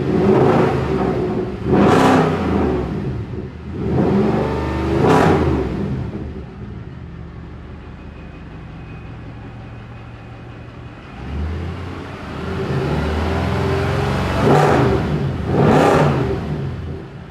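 Mercedes C63 AMG engine being revved in sharp throttle blips, settling to idle for a few seconds in the middle, then revved again twice near the end. It is running properly, its faulty intake and exhaust camshaft adjusters replaced.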